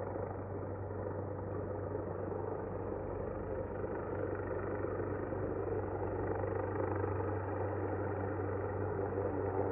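Steady low engine drone, with a humming tone coming in near the end.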